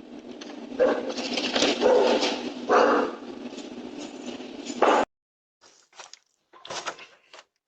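A dog barking several times over a steady hiss that cuts off suddenly about five seconds in, followed by a few short, scattered sounds.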